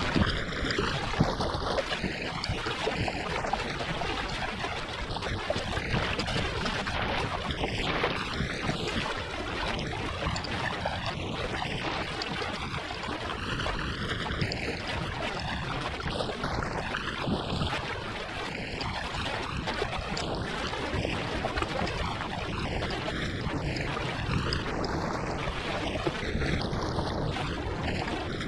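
Steady rush of wind on the microphone mixed with water sloshing against a kayak's hull as it heads in on a windy sea.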